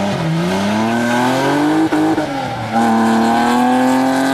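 Car engine revving hard as the car launches from a standing start on a sprint course. It climbs steadily in pitch, breaks briefly for a gear change about two seconds in, then holds at high revs.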